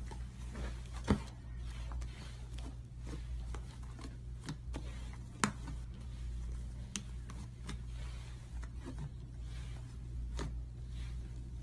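Hands squeezing and stretching a large lump of slime, giving scattered sticky clicks and pops, with a sharper pop about a second in and another about five seconds in, over a steady low hum.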